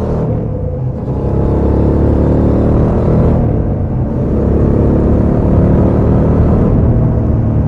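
Suzuki V-Strom 650 XT's 645 cc V-twin engine, on its stock exhaust, running under load as the motorcycle accelerates, rising in level with a brief easing about a second in.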